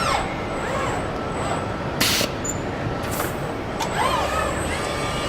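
Car assembly line machinery: electric motors whine up and down in pitch several times, as robots or automated equipment move and stop. A short, loud hiss of compressed air comes about two seconds in, with a fainter one a second later, over a steady factory hum.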